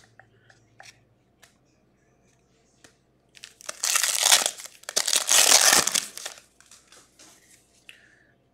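Foil wrapper of a Topps Gold Label trading-card pack crinkling as it is torn open and pulled off, in two loud bursts of about a second each near the middle. A few light clicks of cards being handled come first.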